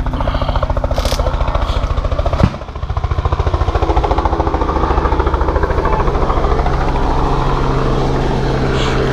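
An engine running steadily close by, with a fast, even pulsing. About two and a half seconds in, one sharp loud crack cuts across it.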